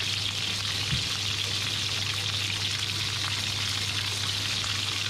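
Lamb rib chops sizzling steadily in hot oil in a frying pan, over a steady low hum.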